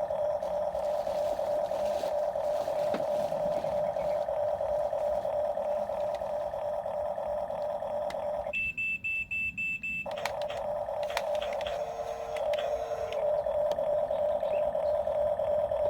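Electric drive motor and gearbox of a Huina RC construction toy whining steadily. About eight and a half seconds in, the whine stops for a second and a half while a steady high beep sounds, then it resumes.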